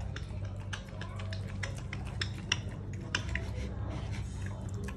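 A small pig eating from a stainless-steel bowl: irregular clicks and clinks of its snout and teeth against the metal bowl as it chews, the sharpest about two and a half seconds in. A steady low hum runs underneath.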